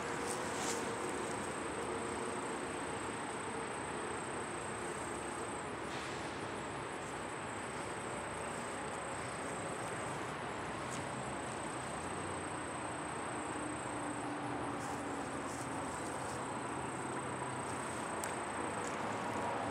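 Crickets trilling in one steady high tone, over a constant outdoor hiss.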